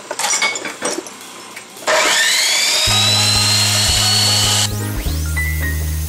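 A few clanks of steel parts being handled, then an abrasive chop saw starts about two seconds in, its motor whine rising in pitch and holding high and steady as the wheel cuts into a steel shaft. Background music with a steady bass line comes in partway through.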